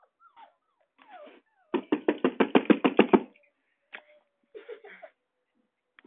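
A puppy going at a cardboard box: a fast run of about fifteen quick beats in a second and a half, with short whines and yips before and after it.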